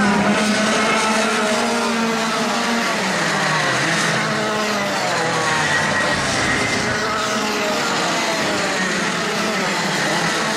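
Several racing go-kart engines at high revs, their pitch rising and falling as the karts lap the track.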